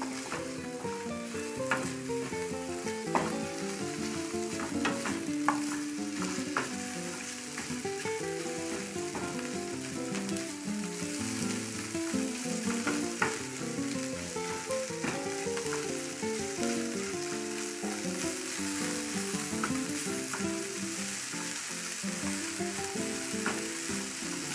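Shrimp and sliced onion sizzling steadily in an aluminium frying pan, stirred with a spatula that knocks and scrapes against the pan now and then.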